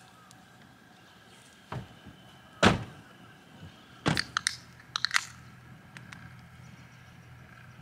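A few sharp knocks and clatters from objects being handled: a single knock, a louder thump a second later, then two quick bursts of clicks and knocks.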